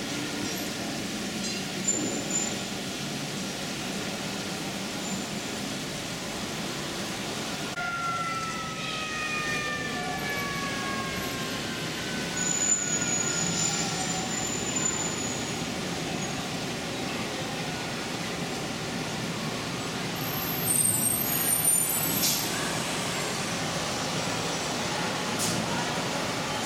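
G scale model trains running on the layout: a steady running noise, with a pitched tone sliding down in pitch about eight seconds in and brief high tones a little after twenty seconds.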